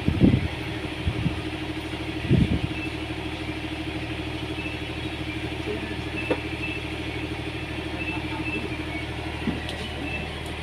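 Excavator diesel engine running steadily, with a few knocks near the start and about two seconds in.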